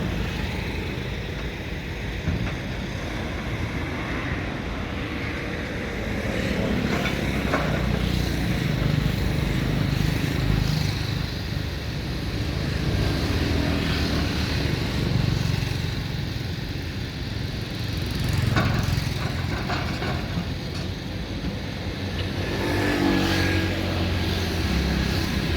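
Diesel engine of an excavator working under changing load, its rumble swelling and easing every few seconds, with occasional knocks of stone.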